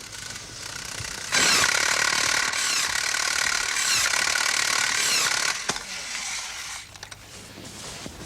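A loud mechanical rattling noise starts suddenly about a second in and runs for about four seconds before fading.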